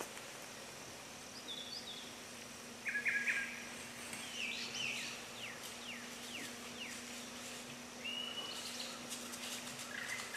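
Woodland songbirds calling: scattered chirps and whistles, with a run of quick downward-sweeping notes in the middle, over a faint steady low hum.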